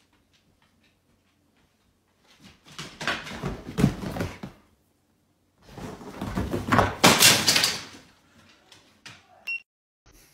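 A golden retriever scrambling onto a leather couch: two loud bursts of scuffling and thudding a few seconds apart. A short high beep sounds near the end.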